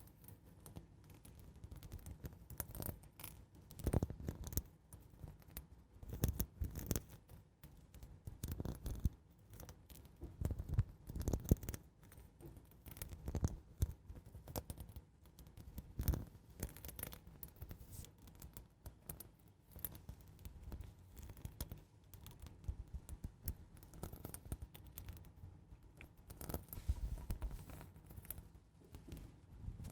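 Slow, gentle ASMR scratching: short, irregular scratch strokes close to the microphone, coming about every one to two seconds.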